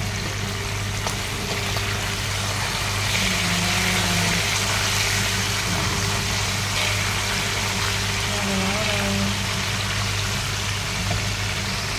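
Whole fish frying in hot oil in a pan: a steady sizzle, a little stronger a few seconds in, over a constant low hum.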